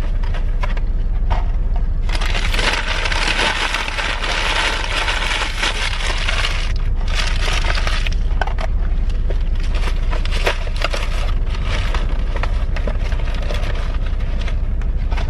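Crinkling, crackling rustle of wrapping being crumpled, loudest for a few seconds early on and then going on in scattered crackles. Under it runs the steady low rumble of the idling Volvo truck's diesel engine.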